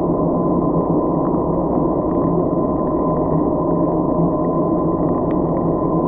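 Muffled underwater rush heard through a GoPro's waterproof housing: a steady dull noise with a constant hum and a few faint ticks.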